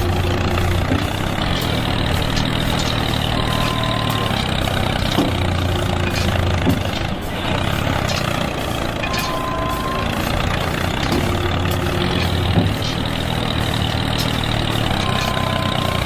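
Engine running steadily, a low heavy hum like an idling tractor or truck. The same sound pattern repeats about every six seconds.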